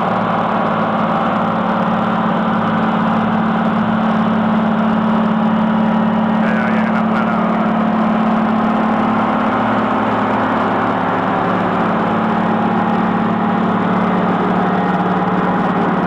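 Heavy diesel engines of a Caterpillar road reclaimer and the tanker truck coupled to it, running steadily with a strong low hum as the reclaimer mixes the roadbed soil with liquid stabilizer.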